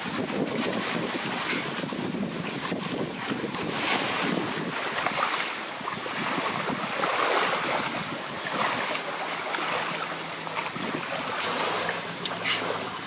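Waves washing on a shore and wind buffeting the microphone: a rushing noise that swells and ebbs every second or two.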